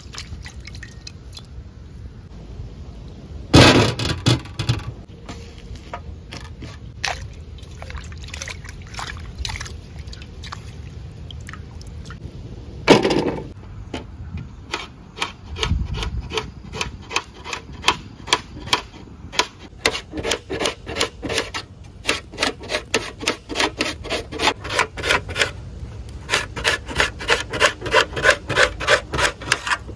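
Knife chopping onions on a steel plate: a run of sharp taps of the blade on the metal, about two to three a second, getting quicker near the end. Two louder sudden noises come before the chopping starts, one a few seconds in and one about halfway.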